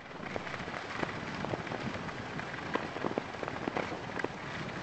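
Skis sliding over packed snow: a steady crackling hiss with many small, sharp clicks.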